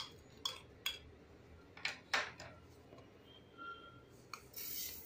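A metal spoon clinking and scraping against a plastic bowl and a stainless-steel mixer-grinder jar as chopped strawberries are tipped in, a few separate clinks. Near the end, granulated sugar pours into the steel jar with a brief hiss.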